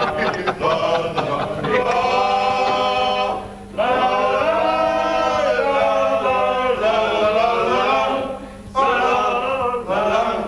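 A group of men singing together in chorus, in three long sung phrases with short breaks between them.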